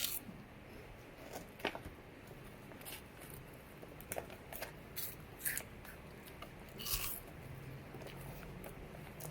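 Crunchy snack being bitten and chewed: scattered short, sharp crunches about once a second.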